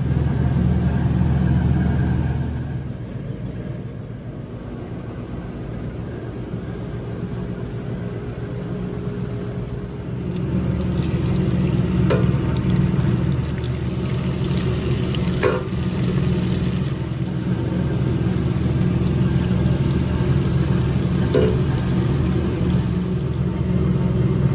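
Vegetables frying in a metal skillet over a gas burner, sizzling, with three sharp clinks of a metal spoon against the pan, over a steady low hum. The sizzle comes in about ten seconds in.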